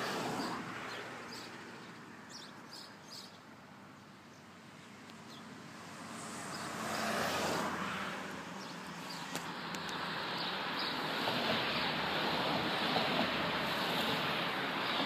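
Road traffic passing on a highway: tyre and engine noise swells as a van drives off at the start and another vehicle passes about seven seconds in. From about ten seconds on, a line of minibuses goes by in a steady, louder rush.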